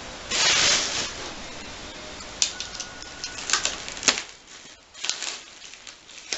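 Unpacking noises from a cardboard shipping box and its packing material: a burst of scraping and rustling near the start, a run of sharp clicks and knocks in the middle, and another short rustle near the end.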